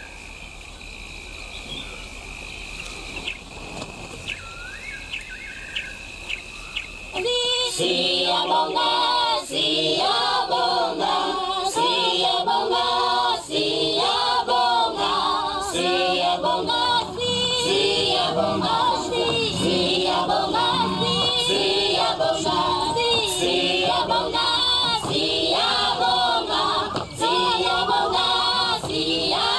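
A steady high insect-like trill with a few short chirps, then about seven seconds in a choir starts singing loudly and carries on.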